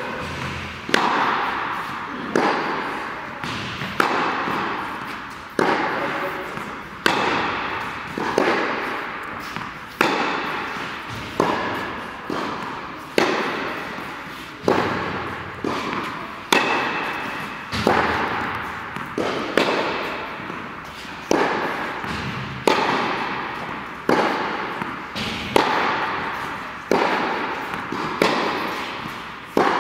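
Tennis ball struck by rackets in a steady rally, a sharp pop about every second and a half. Each hit rings out in the long echo of an indoor tennis hall.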